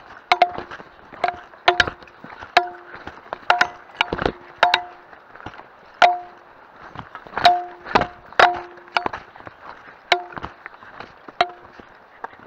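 A loose piece of the walker's gear knocking over and over, each knock ringing briefly with the same hollow tone, at an uneven pace of about one to two a second in step with walking down a rocky trail.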